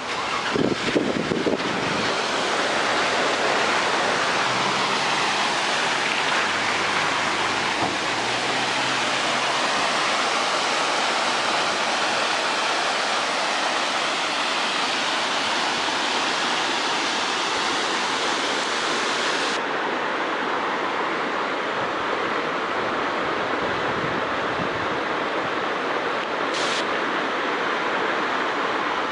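Waterfall rushing in a steady, even roar of falling water, with a few gusts of wind buffeting the microphone in the first couple of seconds.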